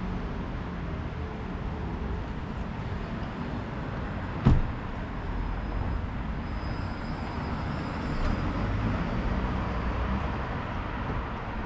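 Steady street traffic rumble from road vehicles, swelling a little as one passes later on, with a single sharp knock about four and a half seconds in.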